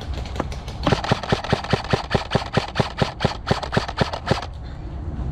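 Airsoft gun firing a rapid, even string of shots, about five or six a second, starting about a second in and stopping abruptly near the end, with a few scattered clicks before it.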